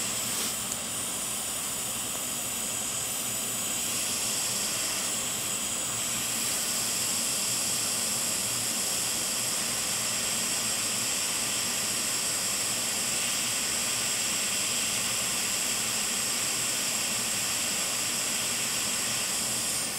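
Hot air rework station blowing a steady hiss of hot air from its nozzle onto a surface-mount chip, heating the chip to desolder it from a MacBook logic board.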